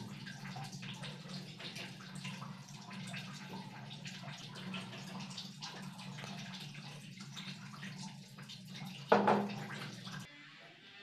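Green capsicum and egg frying in a wok, a steady sizzle full of fine crackles over a low steady hum. About nine seconds in there is a single loud knock, and the sizzle cuts off abruptly shortly after.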